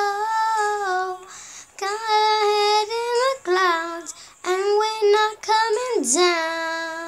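A girl singing, held wordless 'oh' notes broken by short breaths, with a swoop down and back up in pitch about six seconds in.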